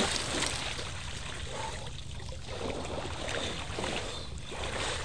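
Water splashing and sloshing in a muddy rain puddle as dogs run and wade through it.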